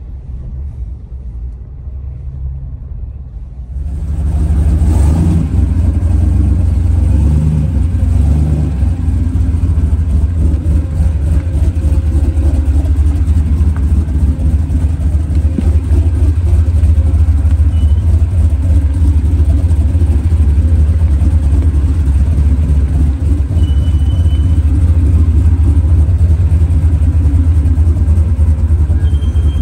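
Off-road vehicle's engine running steadily with a heavy low rumble. About four seconds in, after a quieter stretch, it jumps to loud.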